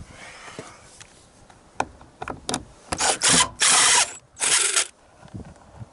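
Ratcheting screwdriver clicking as screws in a door trim panel are worked: scattered single clicks, then three short, loud bursts of rapid ratchet clicking.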